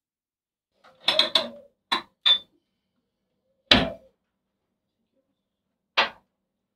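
Kitchen clatter: a quick run of clinks and knocks about a second in, two more short clinks, then a heavier knock and a last clink near the end, as things are handled and set down at a kitchen counter.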